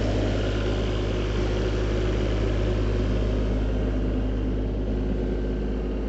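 Skid steer engine running at a steady speed: a continuous low drone with an even, unchanging hum.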